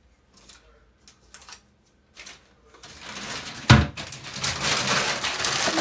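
Wrapping paper being torn and crumpled off a gift-wrapped toilet seat lid, a dense crackling that starts about three seconds in, with one sharp knock at about three and a half seconds. Before that, only a few faint paper rustles and ticks.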